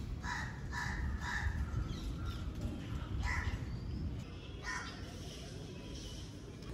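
Crows cawing outdoors: three caws in quick succession, then two more single caws a few seconds later, over a steady low background rumble.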